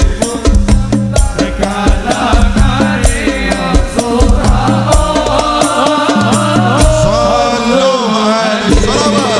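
Hadrah-style sholawat music: hand drums and a deep bass drum beating a quick, steady rhythm, with a sliding melody line over them and no sung words.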